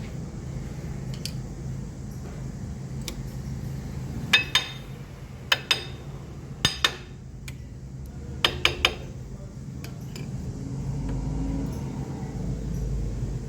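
Metal-on-metal clinking of tools and brake parts being handled: sharp, ringing taps in twos and threes between about four and nine seconds in, over a steady low hum.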